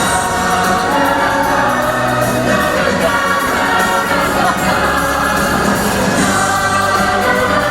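Show music with a choir of voices singing over a full backing track.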